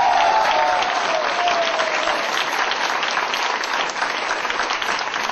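Audience applause in a hall, a dense steady clatter of clapping. In the first second and a half a drawn-out group shout falls in pitch and trails off under the clapping.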